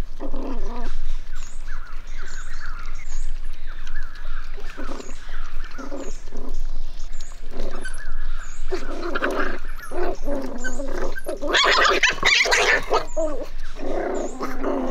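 Puppies whining and growling in short, irregular bouts as they jostle over food at a feeding trough, with a louder, harsher outburst near the end.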